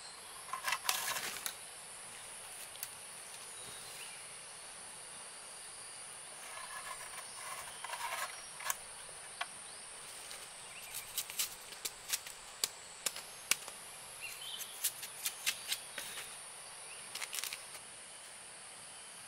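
Sharp crackling and snapping in irregular clusters as the papery sheaths are stripped from young bamboo shoots by hand, densest in the second half. Under it runs a steady high-pitched drone of insects.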